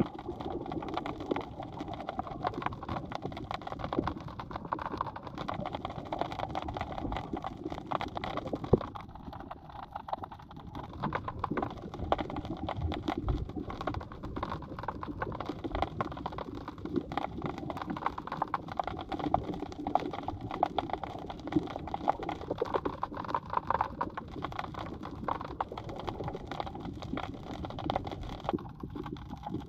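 Underwater sound heard through a GoPro in its waterproof housing: a dense, steady crackle of small clicks over a low murky rumble of water.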